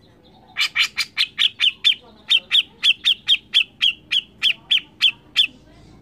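Grey-cheeked bulbul (cucak jenggot) giving its harsh, shrill 'mbeset' call: a fast run of sharp, short notes, about four a second, starting about half a second in with a brief break near two seconds, and stopping shortly before the end.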